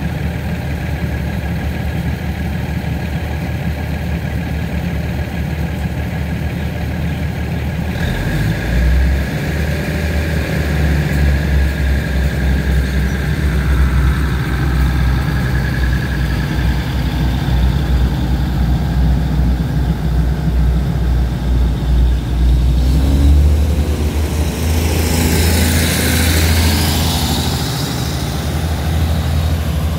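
SRT diesel railcar train's engines running at idle, then throttling up about eight seconds in as the train pulls out, with a faint whine for several seconds. Near the end a burst of wheel-on-rail noise comes as the cars roll past.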